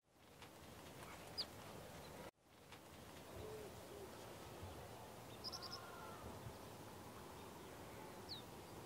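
Faint outdoor ambience: a steady hiss with a few scattered bird calls, short high chirps and a pair of low cooing notes. The hiss drops out for a moment about two seconds in.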